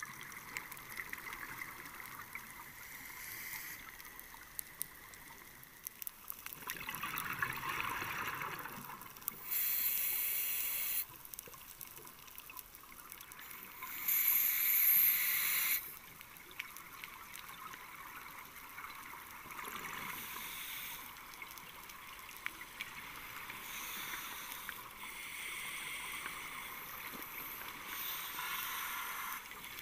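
Scuba diving heard underwater through a camera housing: a steady hiss with fine crackle, broken by a rushing bubble burst from a regulator exhalation every few seconds.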